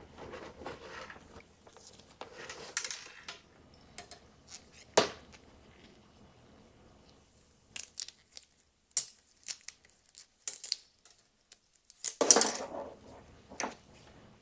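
Rustling, scraping and light clicking as a fiberglass fish rod and a wire are pulled up through a motorcycle's plastic fairing panels, with a sharp click about five seconds in, a run of small ticks later and a louder scrape near the end.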